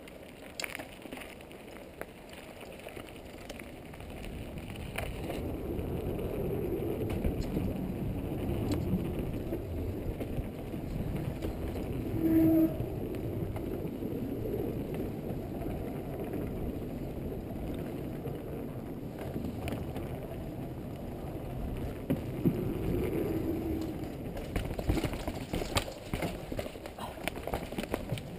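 Downhill mountain bike rolling fast over a forest trail and wooden boardwalk: steady tyre noise and frame and chain rattle, with scattered knocks over bumps and a brief squeal about halfway through.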